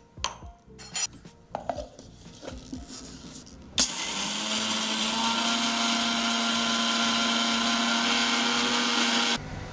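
A few light clinks as the steel jar and lid are set on a Preethi mixer grinder. Then, a few seconds in, the mixer grinder starts suddenly and runs steadily with a held motor tone, grinding split gram dal to powder, and stops shortly before the end.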